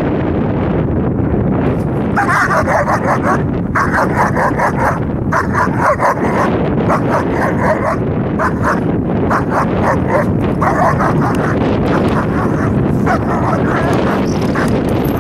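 German Shepherd barking at a sleeve-wearing helper in protection training, in rapid strings of barks with short pauses, starting about two seconds in. Wind rumbles on the microphone throughout.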